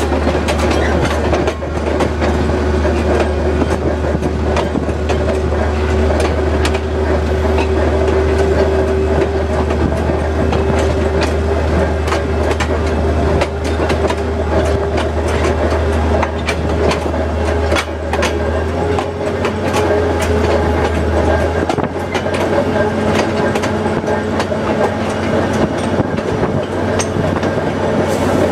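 Diesel switcher locomotive No. 7318 running steadily as it rolls along the track, its engine drone heard from the open front platform, with the wheels clicking over rail joints throughout. The engine's deep note shifts about two-thirds of the way through.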